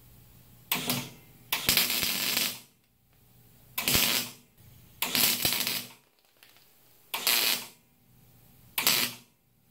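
Wire-feed welder laying six short spot welds, each a burst of half a second to about a second, joining the support back onto a front fender.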